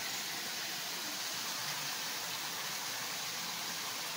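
Steady sizzling hiss of chicken pieces frying in a kadhai.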